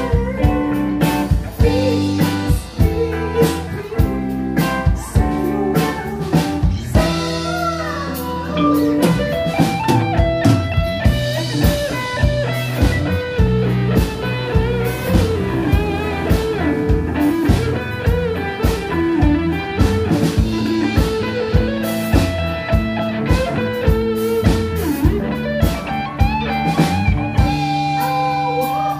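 Live band playing a blues-rock number: amplified electric guitar over bass guitar and a drum kit with steady drum hits.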